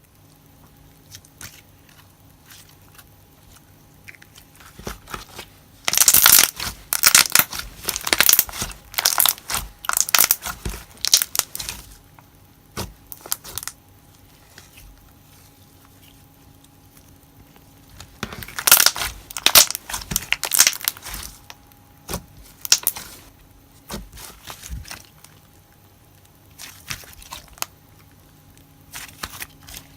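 Hands squishing and stretching glossy slime, popping its trapped air bubbles in dense crackling bouts, loudest from about six to twelve seconds in and again around nineteen to twenty-one seconds, with quieter pauses between.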